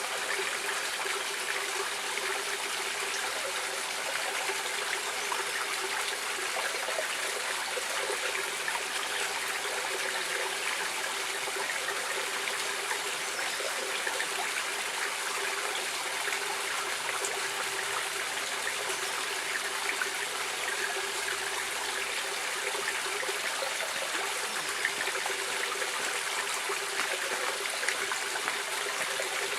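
Steady rushing of a flowing stream, an even splashing and trickling of water over rocks.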